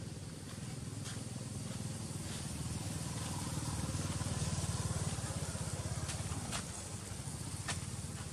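A motor vehicle engine runs nearby, a low steady drone that grows louder around the middle and fades again as it passes. A few faint sharp ticks are heard over it.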